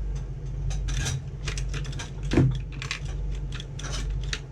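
Small hard items clicking and clattering as they are rummaged through by hand, with one louder knock about halfway through, over a steady low hum.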